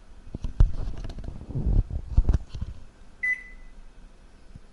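A few light knocks and taps, then about three seconds in a single short beep from the Samsung ME21M706BAS microwave's glass touch control panel, acknowledging a key press.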